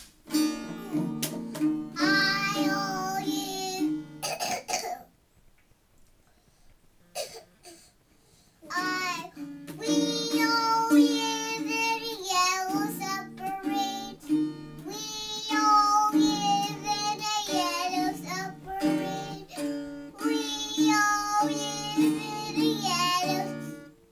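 A boy singing while playing a guitar; the song breaks off about four seconds in for short coughs, then picks up again and carries on.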